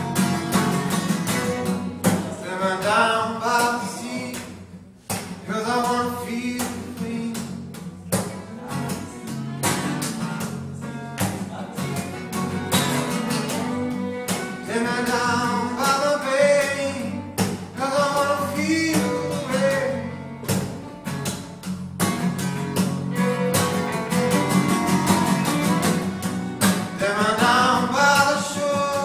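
Acoustic folk trio playing live: two acoustic guitars strummed steadily under a fiddle playing a sliding melody line. A man's singing voice joins near the end.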